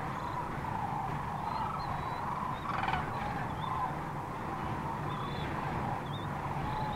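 Flock of sandhill cranes calling, many calls overlapping one after another, over a low steady hum.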